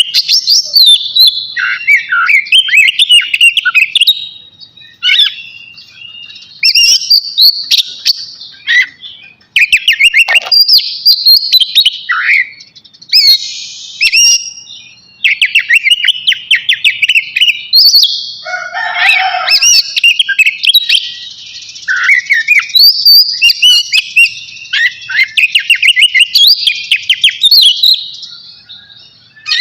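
Oriental magpie-robin singing at length: a loud, varied run of fast trills and chattering phrases with short pauses between them, and a harsher, lower rasping passage about two-thirds of the way through.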